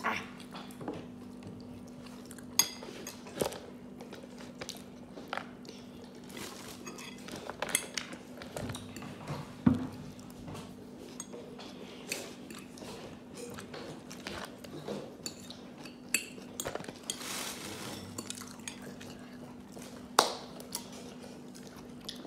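Scattered clinks and knocks of dishes and tableware being handled, with a brief rustle about two-thirds of the way in, over a steady low hum.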